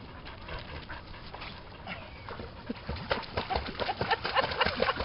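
A dog whining and yipping in quick short cries, starting about three seconds in and growing louder toward the end.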